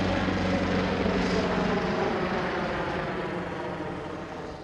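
Airbus H225 twin-turbine helicopter running in flight, its turbine and rotor noise steady at first and then fading away near the end.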